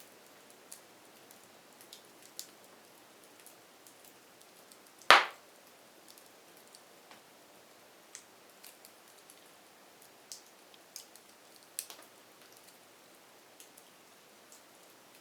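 Burning firewood crackling: scattered small snaps and ticks over a faint hiss, with one loud sharp pop about five seconds in.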